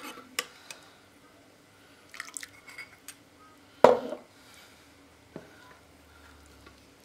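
Metal serving spoon scooping sauce from a glass baking dish and pouring it into a glass cup: light clinks of metal on glass and drips of liquid, with one louder clink that rings briefly just past halfway.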